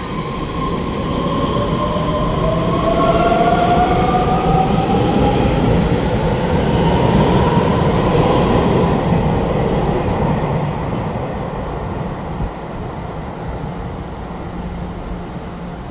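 An EMU3000 electric multiple-unit express train pulls out of an underground station platform. Its motor whine rises slowly in pitch as it gathers speed over a steady rumble of wheels on rail, then eases off as the last cars leave.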